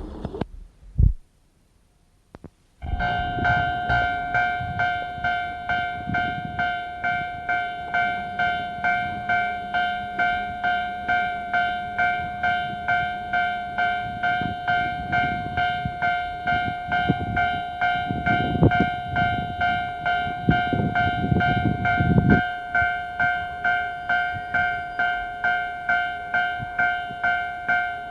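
Railway level crossing warning alarm ringing in a steady repeating pattern, about two strokes a second, starting abruptly about three seconds in after a brief gap. A train rumbles past in the middle, heard on an old cassette recording.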